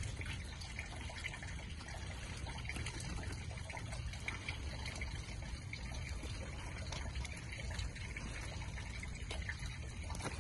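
Steady rain falling, a continuous hiss with many small ticks of drops.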